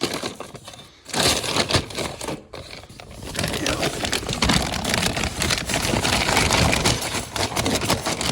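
Chicken scratch grain being shaken and poured out of a nearly empty feed bag, a dense rattling and rustling of grain and bag in two stretches: a short one about a second in, then a longer one from about three seconds in.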